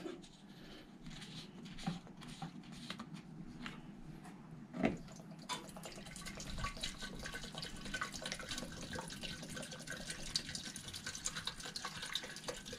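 Petrol poured from a plastic bottle into a lawnmower's fuel tank. After a couple of light knocks, a faint steady trickle of fuel runs into the tank from about halfway in.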